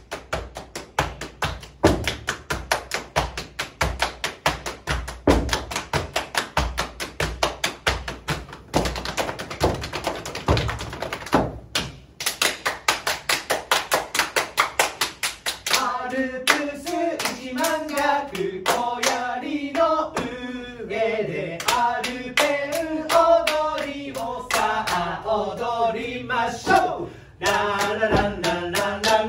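Group body percussion: fast, steady rhythmic pats on shoulders and thighs with foot stamps. About halfway through, voices join, singing a melody over the pats.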